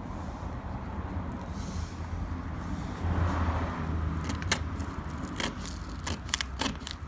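Scissors snipping through the decal's transfer and backing tape: a run of sharp clicks over the last few seconds, with a rustle of the sheet being handled about three seconds in. A steady low rumble sits underneath.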